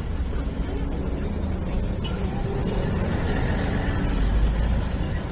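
Street traffic on a busy city avenue: buses and cars passing in a steady low rumble that swells a little about four seconds in.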